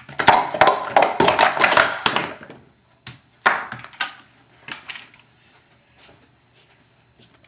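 Plastic speed-stacking cups clattering quickly against each other and the mat as a 3-3-3 set is stacked and brought down, a rapid run of clicks over about two and a half seconds. A single loud clack about three and a half seconds in, then a few light taps of cups.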